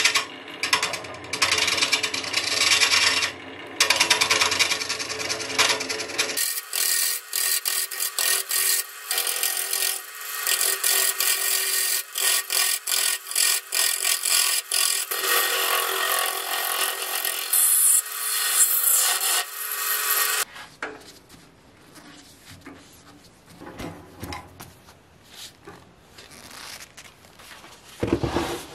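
Wood lathe turning an oak-root-and-resin blank while a gouge cuts into it: a continuous rasping scrape full of quick ticks. About two-thirds of the way through it stops, leaving faint handling noises and a short knock near the end.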